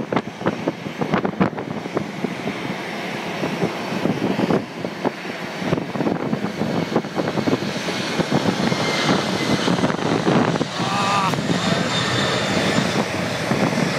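Jet noise of a Boeing 747-400's four turbofan engines at takeoff power during the takeoff roll and lift-off. It is a steady, rough rumble that grows louder and higher-pitched from about eight seconds in.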